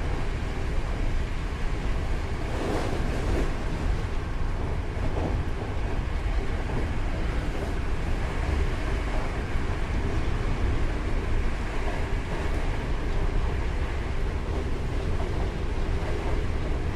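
Hankyu 8000-series electric train running at speed, heard as steady wheel-on-rail rumble and running noise with faint steady tones above it. A brief louder wash of noise comes about three seconds in.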